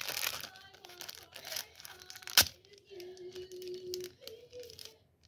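Plastic blind-bag wrapper being torn open and crinkled by hand, with one sharp snap about two and a half seconds in.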